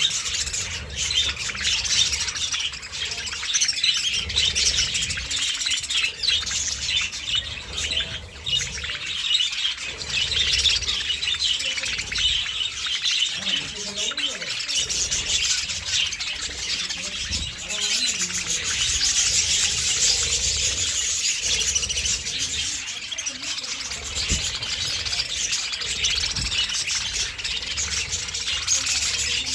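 A flock of budgerigars chattering and chirping at once, a dense, unbroken mass of high warbling calls.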